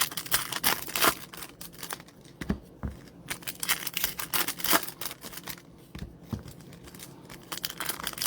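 Trading card packs and cards being handled: a run of irregular crinkles, scrapes and taps as foil wrappers are torn open and the cards are slid and flipped.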